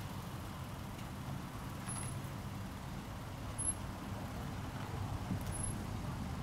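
Steady low outdoor rumble under a faint hiss, with three brief high chirps spread through it.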